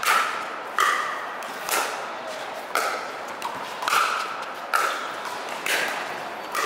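A rally of pickleball paddles striking a plastic ball: about seven hollow pocks roughly a second apart, each with a short ringing echo from the roofed court.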